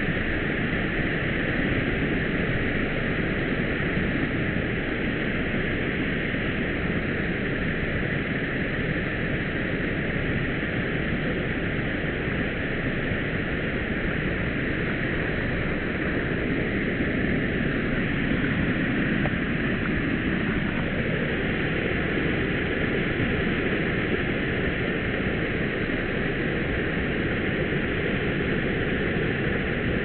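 Small waterfall rushing steadily, water pouring over rocks into a pool.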